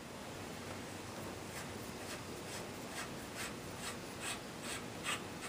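Threaded muzzle device being spun off an AR-15 pistol barrel by hand, its fine threads giving a faint, soft rasp that repeats about two or three times a second, starting a second or so in.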